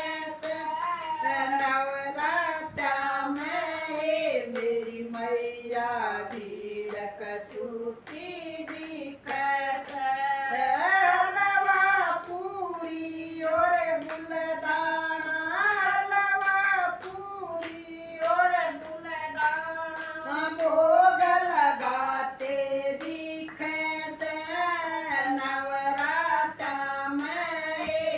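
Women's voices singing a Haryanvi devotional bhajan together, unaccompanied by instruments, with steady hand claps keeping the beat.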